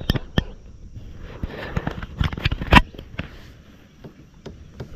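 Scattered clicks and knocks, the loudest about three seconds in, over a faint rustle.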